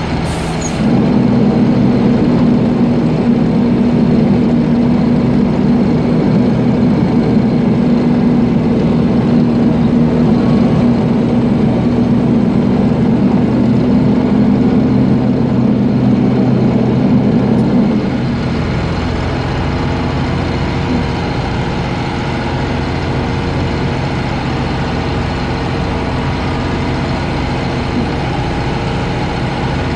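A vehicle's engine running steadily at low speed, with an even droning hum. About eighteen seconds in the hum eases and gets quieter, as the engine comes off the throttle. There is a short click just after the start.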